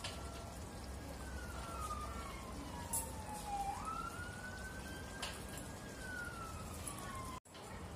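An emergency-vehicle siren wailing: one tone that falls slowly, jumps back up about halfway through and then slowly falls again, over a low steady hum and a few soft clicks. The sound cuts off suddenly near the end.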